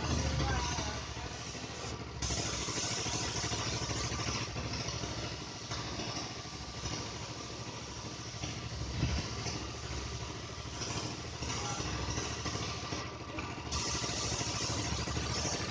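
A motor running steadily, with a hiss over it that cuts out briefly twice.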